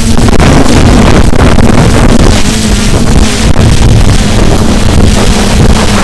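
F450 quadcopter's electric motors and propellers giving a loud, steady hum whose pitch wavers slightly as the flight controller changes motor speed. Heavy wind buffets the onboard camera's microphone throughout.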